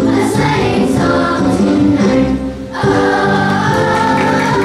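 Elementary-school children's choir singing together, with a short break between phrases about halfway through, then longer held notes.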